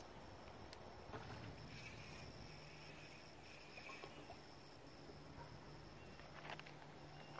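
Near silence with faint, steady insect buzzing, broken by a few faint clicks.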